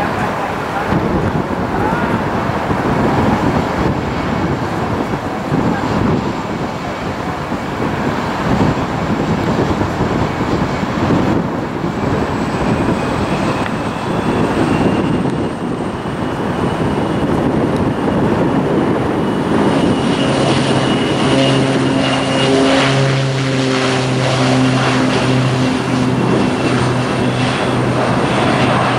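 Airliner's engines running, a high thin whine rising slowly in pitch over a broad rushing noise, with a low steady drone swelling in about two-thirds of the way through.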